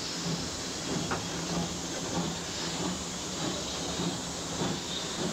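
Locomotive running: a steady rumble with a regular low beat about twice a second under a constant hiss.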